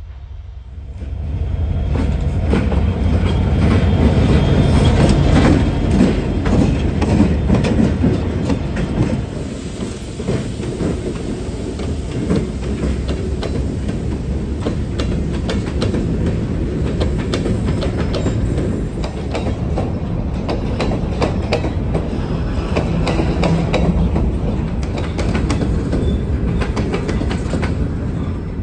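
A freight train passing close by, led by diesel locomotives: a heavy engine rumble builds about a second in and is loudest for the next several seconds as the locomotives go by. Then a long string of empty covered hopper cars rolls past with a steady clickety-clack of wheels over rail joints.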